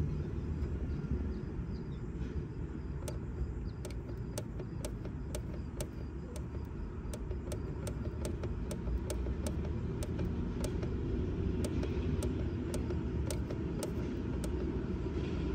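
Push button on a Siemens Climatix-ECO economizer controller clicking over and over, a few times a second, as its menu is scrolled. Under it a steady low rumble.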